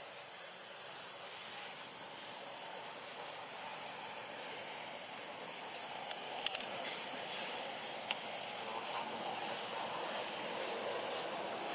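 Steady high-pitched drone of insects in the trees, with a few sharp clicks about six and a half seconds in.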